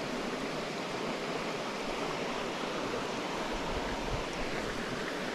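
Small stream flowing, a steady rush of water.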